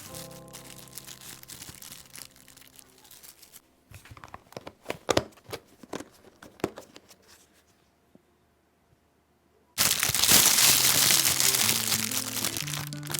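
Light background music, then crinkling and clicking handling noises typical of plastic packaging, a brief silence, and a loud even rushing noise for about three seconds.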